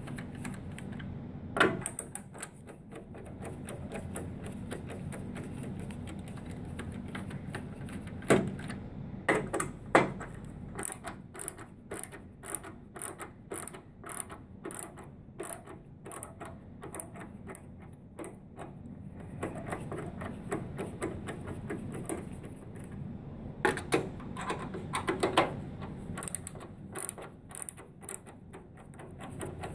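Cordless drill with a screwdriver bit running to back screws out of a printer's plastic cover panel. Between spells of steady motor whir come sharp clicks and knocks, several in a row through the middle and again near the end.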